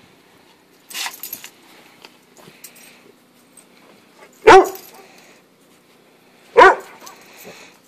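Dog barking twice, two loud single barks about two seconds apart.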